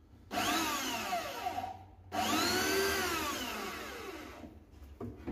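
Handheld corded electric power tool run in two bursts of about one and a half and two and a half seconds, its motor whine rising as it spins up and falling as it winds down.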